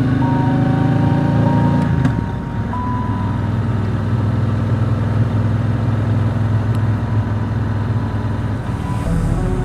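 Triumph Speedmaster's parallel-twin engine on the move, pulling with its pitch rising slightly. About two seconds in, the throttle is rolled off and the note drops, then it runs on steadily at lower revs.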